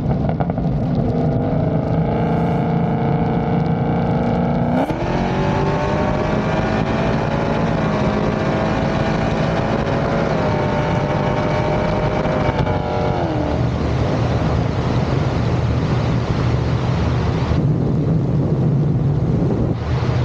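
Car engine under hard acceleration in a full-throttle pull: the pitch climbs sharply about five seconds in and shifts in steps through the gears. It falls away as the throttle is lifted about two-thirds of the way in, leaving road and wind rumble.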